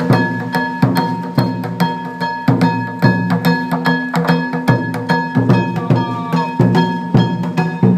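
Yamakasa festival percussion: a taiko drum beaten in a fast, uneven rhythm of about three strokes a second, with a steady metallic ringing held over it.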